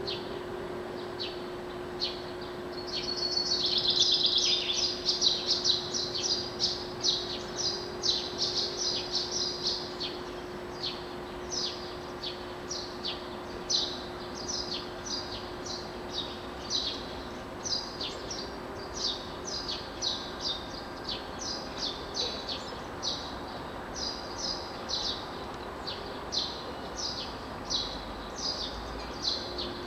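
Dawn chorus of songbirds: many short, repeated chirps and song phrases. A denser, louder burst of song comes about three to five seconds in. A steady low hum lies underneath.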